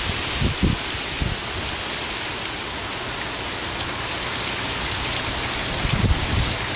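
Heavy hurricane rain pouring steadily, with a few brief low thumps, about half a second in, about a second in and near the end.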